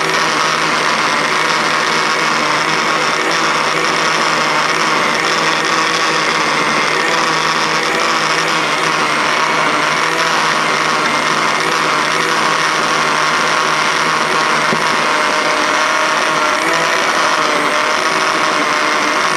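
Countertop blender motor running steadily at speed, blending a thick ice cream milkshake.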